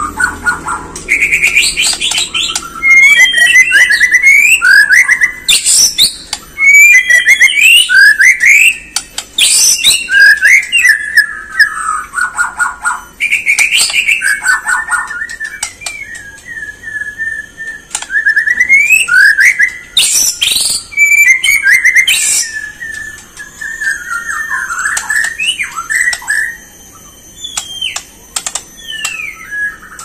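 White-rumped shama (Bornean race, 'murai borneo') singing a loud, varied song: rich whistles sliding up and down, rapid trills and sharp chattering notes, in phrases separated by short pauses.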